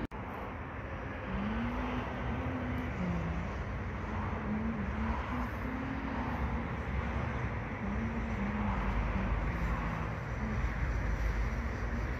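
Outdoor city background with distant road traffic and a low tone that wavers up and down in pitch; no train passing.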